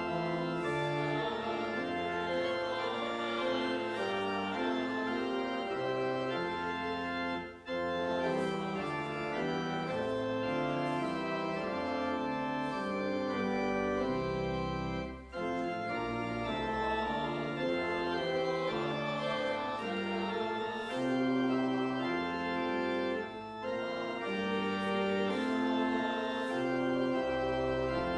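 Pipe organ playing a hymn in sustained full chords. The phrases are separated by brief breaks roughly every eight seconds.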